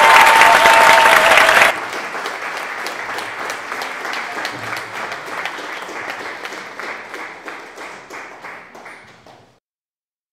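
A cast's held final sung note from a stage musical, cut off abruptly under two seconds in, followed by a theatre audience applauding that slowly fades out to silence.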